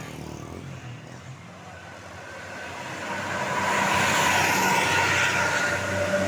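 A bus drawing near along the road. Its engine and tyre noise grows steadily louder from about two seconds in and stays loud to the end.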